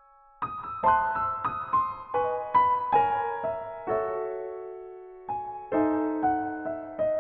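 Background piano music: a gentle run of struck notes and chords, each ringing out and fading, starting about half a second in after a moment of near silence.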